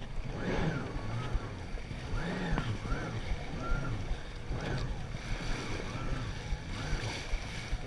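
Jet ski engine running at speed, its pitch rising and falling every second or two as the craft bounces over choppy waves, over the rush of water spray and wind.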